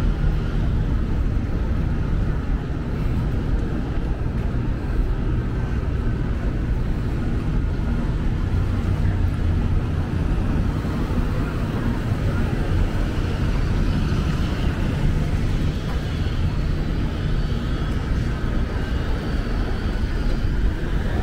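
Steady low rumble of outdoor noise with a fainter hiss above it, unbroken throughout.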